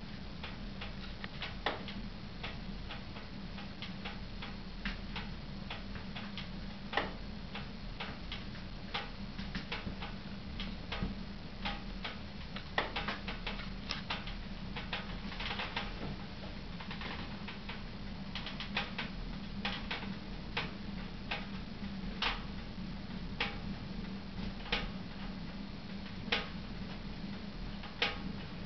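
Wood stove burning and heating up: irregular sharp ticks and crackles, sometimes single, sometimes in quick clusters.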